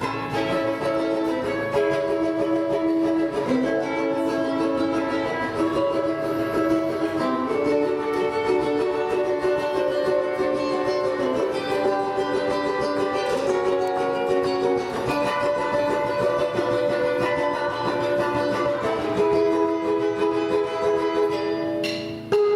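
Live band playing an instrumental passage led by strummed plucked-string instruments such as ukulele, moving through chord changes. It starts abruptly and breaks off briefly near the end.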